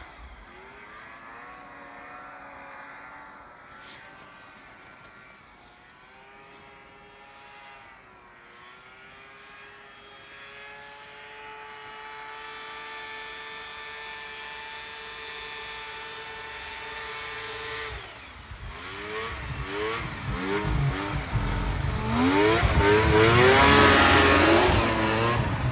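Snowmobile engine, faint and far off at first, its pitch rising and falling with the throttle and then holding level for several seconds. From about two-thirds of the way in it grows loud, the pitch swinging quickly up and down, as the machine comes close and passes by near the end.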